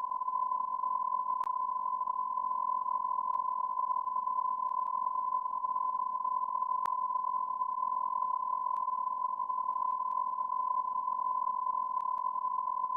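A steady, unbroken high-pitched electronic beep tone, like a censor bleep or test tone held on, with a few faint clicks over it.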